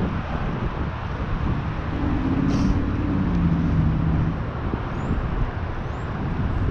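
Wind rushing over the camera microphone on a moving fixed-gear bicycle, a steady low rumbling noise. About two seconds in, a low steady hum joins it for roughly two seconds, stepping down in pitch partway through.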